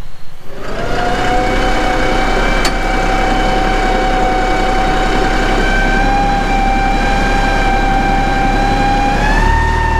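John Deere 5055E tractor's diesel engine running under load while pushing dirt into a trench, with a steady whine over the engine note. Near the end the pitch steps up as the engine speeds up.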